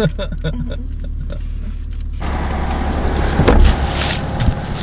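Steady low hum inside a Chevy Silverado pickup's cab, with a few light clicks. About two seconds in, a wash of outdoor noise suddenly comes in and stays, with a louder rustle a little later.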